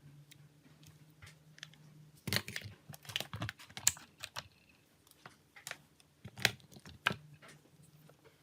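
Irregular small clicks and taps of hard plastic and metal parts being handled on a Nokia E71 phone, in two short clusters.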